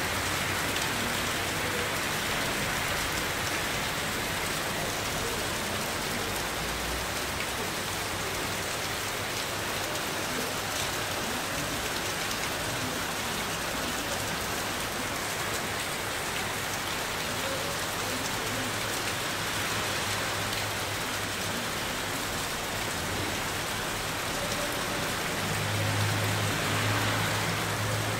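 Heavy summer rain pouring down steadily, a sudden downpour. A low rumble comes up near the end.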